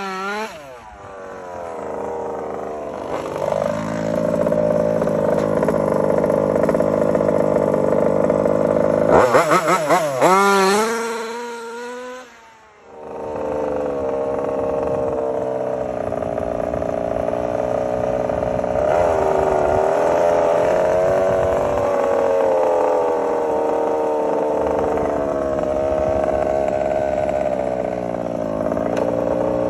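Taylor RC 35cc two-stroke gas engine of a 1/5-scale RC car running at steady revs, with a few quick revs up and down just before the middle. It drops away briefly near the middle, then runs steadily again with gentle rises and falls in pitch.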